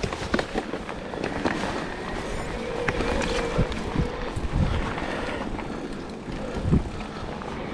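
Mountain bike rolling over a rough trail: steady tyre and rolling noise with frequent knocks and rattles from bumps.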